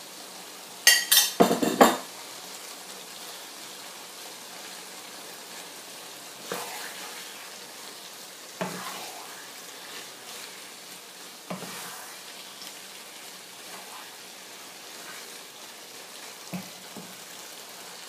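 Pesto pasta with shrimp and fish sizzling in a frying pan as it is stirred. There is a burst of loud clattering about a second in, and a few single knocks of the spoon against the pan later on.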